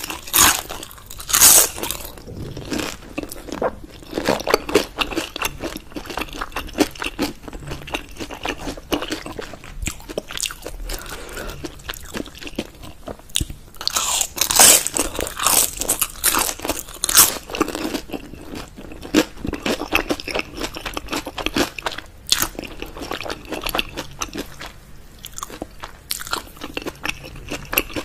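A person biting and chewing crispy pan-fried dumplings, with the crunch of the fried wrapper. The loudest crunching bites come about a second in and again around fourteen to seventeen seconds in, with quieter chewing clicks in between.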